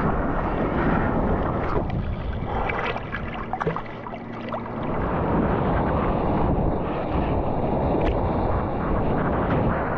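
Ocean water rushing and splashing right against a surfer's GoPro, with wind buffeting its microphone. The sound dips quieter for a couple of seconds around the middle, then comes back up as the camera goes into whitewater.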